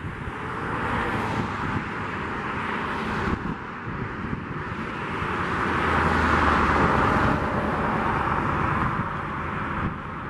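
Boeing 737 jet airliner on final approach, its engine noise swelling as it comes closer and loudest about two-thirds of the way through. Gusty wind buffets the microphone throughout.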